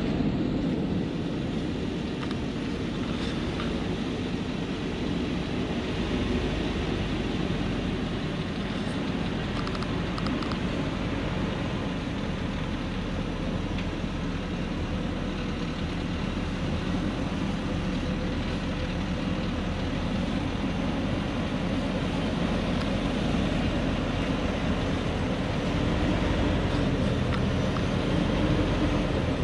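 Diesel truck heavily loaded with acacia wood, its engine running steadily under load as it climbs a steep dirt track. The engine note lifts slightly and grows a little louder near the end as the truck draws closer.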